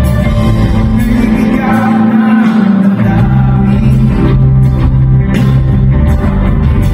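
Live pop-rock band playing on stage, with electric guitars and keyboard and a voice singing, heard loud from the audience in a large arena.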